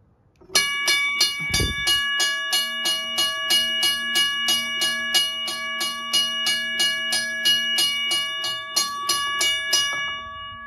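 WABCO electric railway crossing bell ringing: its striker hits the gong at an even pace of about three strikes a second, very consistent. The striking stops near the end and the gong's tone rings on, fading.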